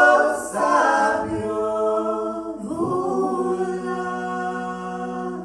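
Mixed ensemble of male and female voices singing together in harmony, in three long held chords; the last chord is sustained and fades out at the end.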